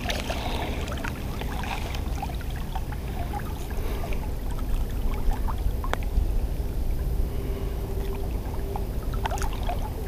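Steady low rumble of river water flowing close to the microphone, with scattered small ticks and one sharp click about six seconds in.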